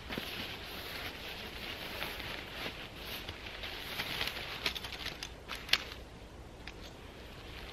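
Fabric of a Jack Wolfskin Exolight 1 solo tent rustling and crinkling as it is unrolled and unfolded by hand, with a few sharp clicks past the middle, one much louder than the others.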